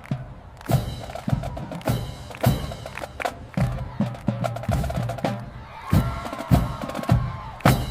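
Drums played in a beat, with sharp strikes about two a second and a faint pitched tone between them.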